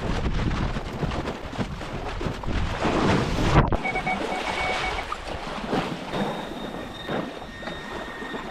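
Wind buffeting the microphone over water at the shoreline. After a sudden cut about a third of the way in, steady electronic tones sound from a metal detector and then a handheld pinpointer as they are worked over a water-filled hole in the sand, a sign they are reading a metal target.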